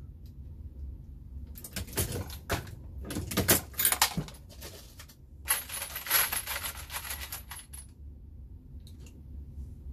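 Dillon Square Deal progressive reloading press being cycled, with metallic clicks and clatter of press parts and cartridges. The clatter comes in two spells of a couple of seconds each, then a few single clicks near the end.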